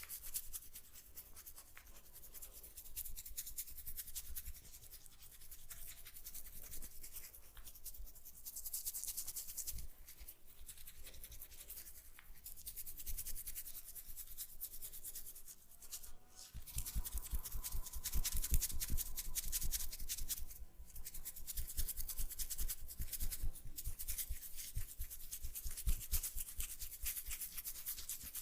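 Hands rubbing and working through oiled hair and skin during a head massage, a close, continuous scratchy rubbing. It grows louder and quicker about two-thirds of the way in.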